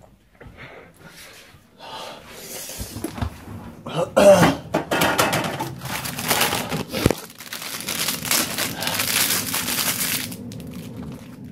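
A man coughing several times and breathing harshly, from the burn of a Carolina Reaper chili pepper in his mouth and throat.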